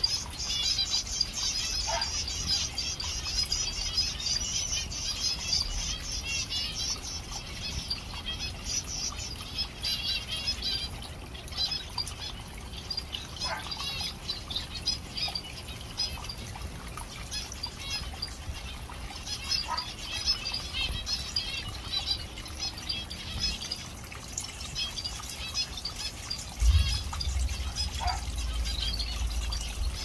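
Small aviary finches chirping and chattering in rapid, continuous high calls, over the trickle of a small recirculating waterfall. The water grows louder near the end.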